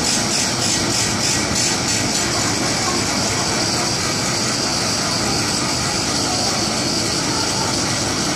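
Double-deck Zurich S-Bahn train standing at the platform, its onboard equipment giving a steady hiss and hum. In the first two seconds the hiss pulses about three times a second, then it settles.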